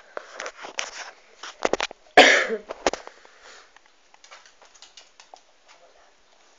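A cocker spaniel sniffing right at the phone, in quick short breaths, with one loud short snort about two seconds in; the sniffing fades after about three seconds.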